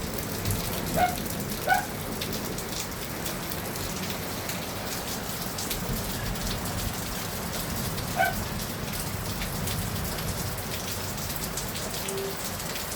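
Heavy rain falling steadily, with many individual drops striking nearby surfaces.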